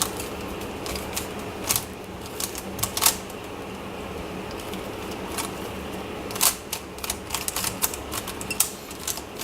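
Plastic MoYu Crazy YiLeng puzzle cube being turned by hand during a solve: irregular clicks and clacks as its layers snap round, some in quick runs.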